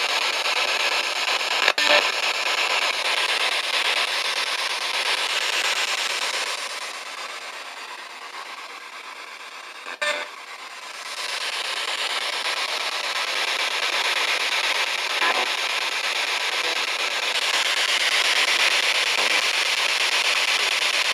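Spirit box sweeping through radio stations: a steady wash of radio static, with a sharp click about two seconds in and again about halfway, and a quieter stretch just before the middle click. It carries brief fragments that the uploader captions as the names "Sabrina" and "Tony".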